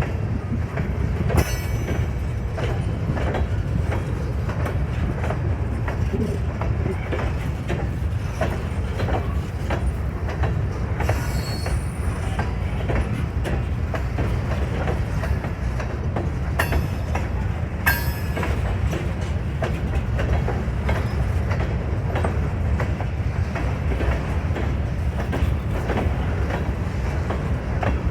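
Cars of a loaded grain train rolling past at steady speed: a continuous low rumble with rapid clickety-clack of wheels over rail joints, and a couple of brief high wheel squeals around the middle.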